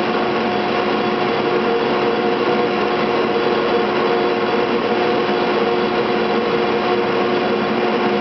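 Cable-car winding machinery running: electric drive motors and gearing turn the large grooved sheaves that haul the steel cables under the streets. It makes a loud, steady mechanical hum with several held tones over a dense rushing clatter.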